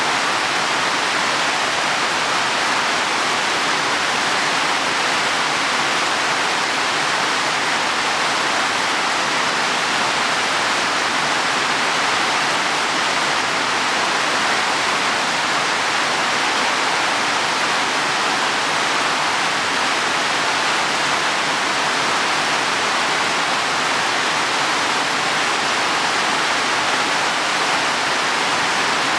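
Heavy rain falling steadily on leaves and soil, a dense even hiss with no separate drops standing out.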